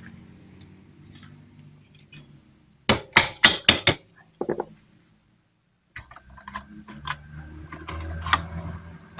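Metal parts and tools clanking and clicking as a motorcycle engine is fitted into its frame and its mounting bolts are put in, with a quick cluster of sharp knocks about three seconds in. The sound drops out completely for about a second near the middle, then a low hum returns with scattered lighter clicks.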